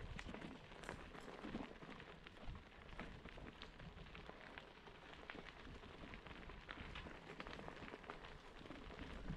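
Gravel bike tyres rolling over a dirt-and-gravel track strewn with dry leaves: a steady run of small clicks and crunches, with a few louder knocks.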